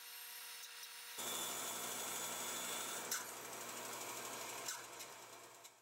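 Bandsaw cutting a curve through half-inch MDF. A faint motor hum gives way about a second in to a steady hiss of the blade in the board, which eases off and fades near the end as the cut finishes.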